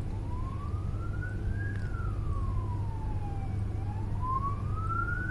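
Police car siren wailing, its pitch sliding slowly up and down, peaking about every three and a half seconds, over a steady low rumble of vehicles.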